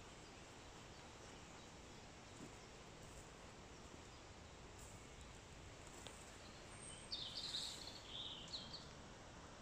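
Faint steady woodland background hiss, with a short phrase of bird song, several quick high notes, about seven seconds in.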